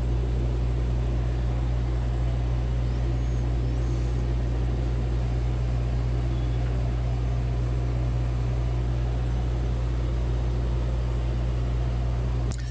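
Steady low mechanical hum with an even hiss over it, unchanging throughout, typical of ventilation fans or air-handling equipment running.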